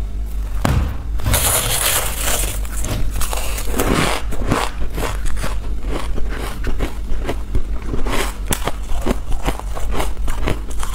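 Freezer frost crunching as it is scooped with a metal spoon and chewed: a dense, continuous run of crackling crunches, over a steady low hum.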